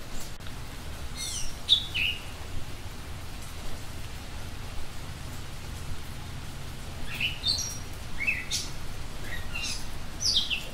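Bird calls: short chirps falling in pitch, a pair about a second and a half in, then a run of several from about seven seconds to the end, over a steady background hiss.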